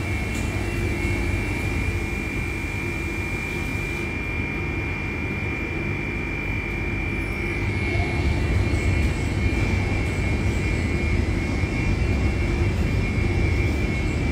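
Tammermatic T700 Lux touchless car wash at work: a steady rush of high-pressure water spray and machine noise with a constant high whine through it, growing louder about eight seconds in.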